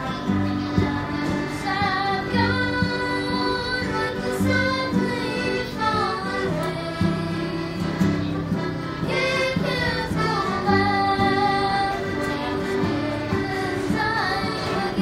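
A young boy singing a song solo with a clear voice, over a steady instrumental accompaniment of low chords.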